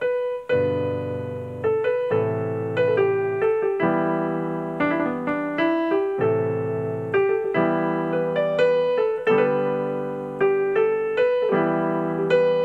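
Yamaha portable keyboard played with both hands: a melody of single notes in the right hand over held chords in the left, the chord changing about every two seconds.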